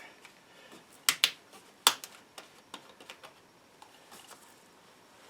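Sharp plastic clicks and lighter ticks from handling a plastic bottle of synthetic oil and its cap: a loud double click about a second in, another sharp click just before two seconds, then a scatter of small ticks.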